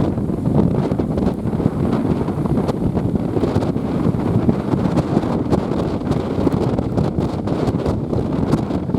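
Strong wind buffeting the microphone in a constant low rumble, with the noise of heavy surf beneath it.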